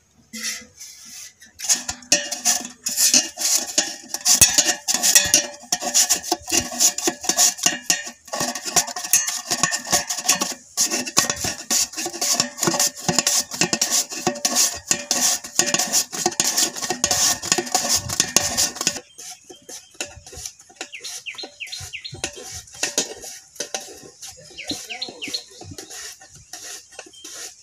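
Potatoes being sliced on a handheld steel-bladed mandoline slicer, a fast run of rasping strokes with slices dropping into a metal pot. The slicing stops about 19 seconds in, leaving quieter, lighter strokes and birds chirping.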